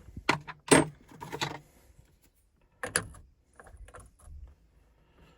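Metal tool sockets clinking and rattling as the right size is picked out of a socket set. There are several sharp clinks in the first second and a half, another about three seconds in, and lighter rattles around four seconds.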